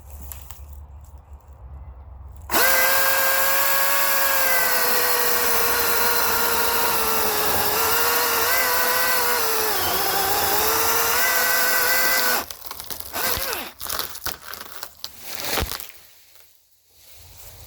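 Milwaukee M18 16-inch battery chainsaw cutting into a sweet gum trunk. Its electric motor and chain start abruptly a couple of seconds in and run with a steady high whine for about ten seconds, the pitch sagging as it loads up in the cut, then stop suddenly. A run of cracks and knocks follows as the tree splits and goes over in a barber chair.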